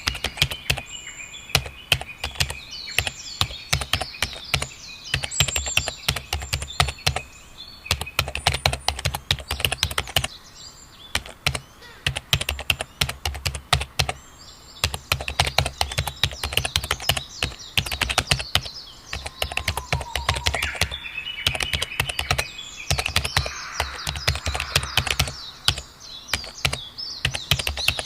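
Steady typing on a computer keyboard, keystrokes clicking in quick runs with brief pauses, while birds chirp and twitter in short calls behind it.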